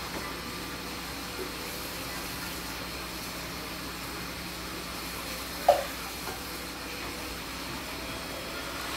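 Steady background hiss with a faint hum, and one short click about five and a half seconds in.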